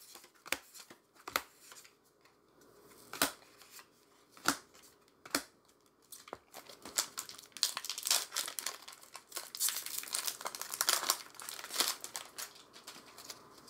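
Crinkly plastic wrapper of a Magic: The Gathering booster pack being crumpled and torn open. A few separate sharp crackles come first, then dense crinkling from about six seconds in until near the end.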